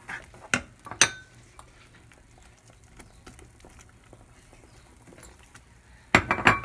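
A metal spoon clinking and knocking against a saucepan while stirring shredded chicken into a creamy sauce: a few sharp clinks in the first second, one ringing briefly, a quieter stretch, then a quick loud clatter near the end.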